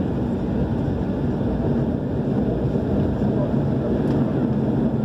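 Airliner's engines at takeoff power, heard from inside the cabin as a steady, loud low rumble with a faint hum.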